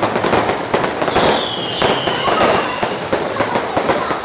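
Fireworks and firecrackers going off in a dense, unbroken crackle of rapid bangs. A high whistle falls in pitch for about a second near the middle.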